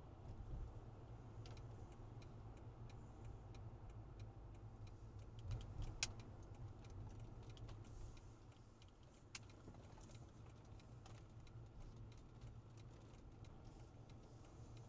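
Faint low rumble of a car's engine and tyres heard from inside the cabin, with scattered light ticks and clicks throughout; the sharpest click comes about six seconds in.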